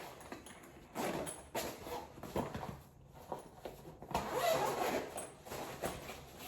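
A zipper on a soft tool bag being pulled open, with rustling and light knocks from handling the bag and its contents; the longest zip run comes a little past the middle.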